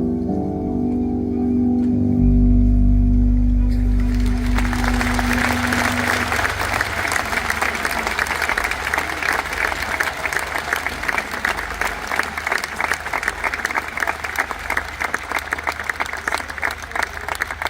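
A live band holds a sustained closing chord, with a low bass note, which dies away. About four seconds in, a large concert audience bursts into applause and cheering, which goes on steadily.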